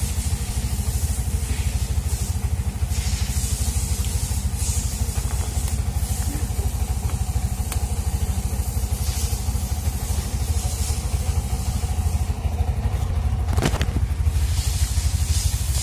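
Bajaj BS6 petrol-CNG auto rickshaw's single-cylinder four-stroke engine idling steadily. There is light rustling from a diagnostic cable and connector being handled, and a sharp click near the end.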